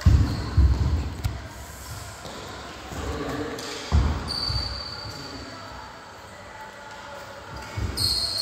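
Players' feet thudding on a wooden sports floor during a badminton rally, heaviest at the start and about four seconds in, with a few sharp racket hits on the shuttle. A short high squeak sounds about four seconds in.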